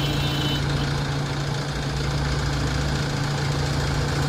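Diesel engine of a heavy earthmoving machine running steadily with an even, unchanging drone.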